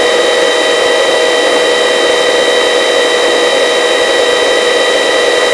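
Helicopter in forward flight, heard through the crew intercom: a steady engine and rotor drone with a constant high whine.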